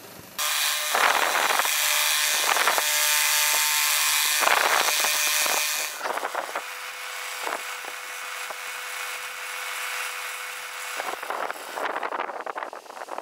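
Drill-mounted sanding disc pressed against a resin and jarrah bowl spinning on a wood lathe: a loud abrasive hiss starts suddenly about half a second in and swells and eases with each pass. After about six seconds it gives way to the lathe running more quietly with a steady hum and light intermittent rubbing, which grows busier near the end.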